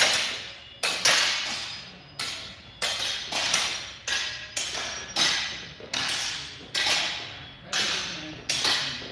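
Training swords striking during practice drills: a string of sharp hits, roughly one or two a second at irregular spacing, each with a ringing, echoing tail in a large hall.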